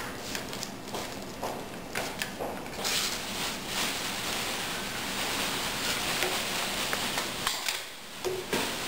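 Clicks and scraping as a jig is slid into and seated in the metal work clamp of a computer-controlled pattern sewing machine, over a steady hiss that drops away shortly before the end.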